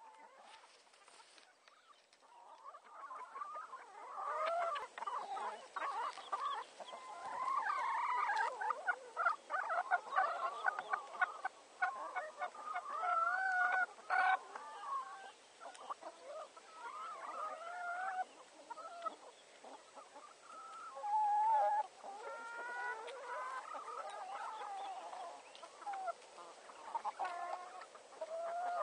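A flock of free-range hens, including re-homed ex-battery hens, clucking continuously, many calls overlapping. It starts faint and thickens into constant chatter after about three seconds.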